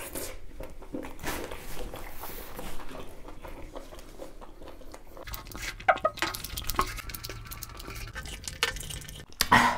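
Eating at the table: scattered small clinks and clicks of utensils against a dish, busiest in the second half, with a louder burst of noise near the end.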